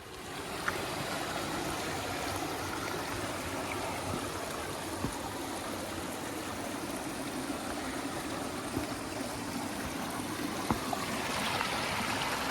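A woodland stream running steadily over stones: an even rush of flowing water with no break.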